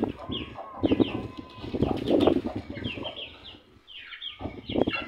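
Young Aseel chickens peeping in quick, short falling chirps, over and over, mixed with louder low, rough rustling sounds that come and go.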